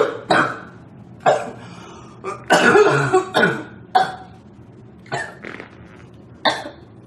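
A girl coughing over and over: a string of short, harsh coughs roughly a second apart, with a longer, louder run of coughs a little before halfway, and weaker coughs towards the end.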